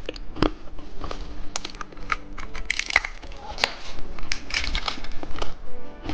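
Plastic candy packaging crinkling and crackling, with many quick sharp clicks and taps as the toy candies are handled.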